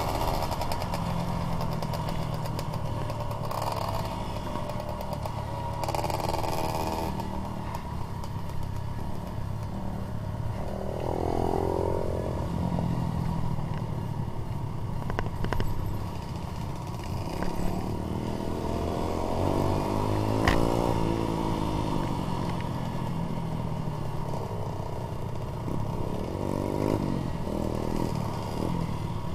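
Trail motorcycle engine heard from on board while riding a rough dirt track. The engine note rises and falls several times with the throttle, over a running rattle from the bike, and there is one sharp knock about two-thirds of the way through.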